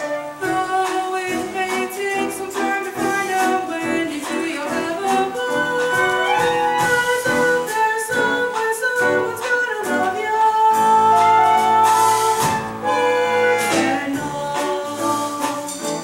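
A solo voice singing a musical-theatre song over instrumental accompaniment, with a long held note a little past halfway through.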